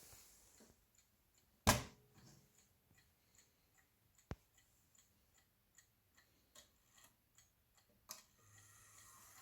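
Howard Miller three-chime clock ticking softly and evenly, about two and a half ticks a second, with one louder knock about two seconds in and a faint low hum near the end.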